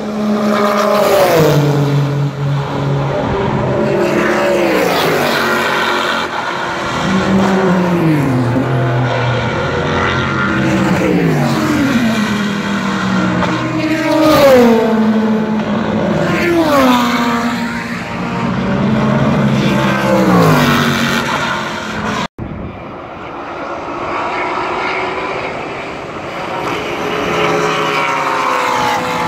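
IMSA sports-prototype and GT race cars passing at speed one after another, each engine note falling in pitch as the car goes by. The sound cuts out briefly about three quarters of the way through.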